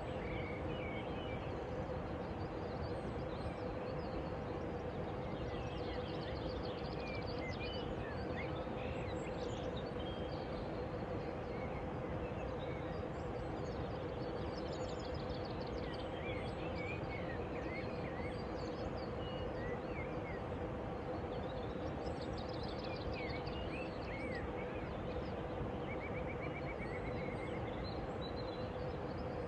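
Small birds chirping and trilling in short calls scattered throughout, over a steady background rush with a faint constant hum.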